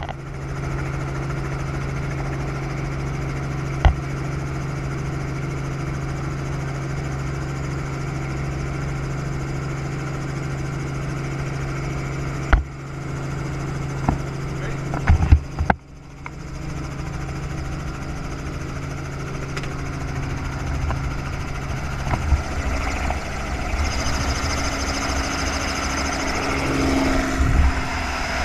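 Robinson R44 helicopter heard from inside the cabin, its engine and rotors giving a steady drone. About halfway in, the steady tones fall away and a broad rush of wind builds toward the end.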